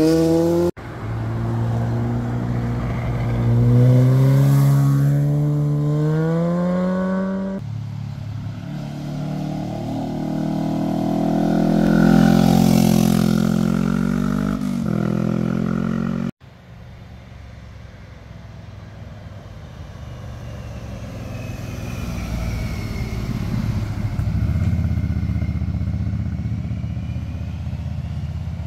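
Motorcycles passing one after another through a hairpin bend. Each engine revs up in pitch as the bike accelerates out of the corner, with an upshift about seven seconds in. After a cut near the middle, another bike starts fainter and grows louder as it approaches.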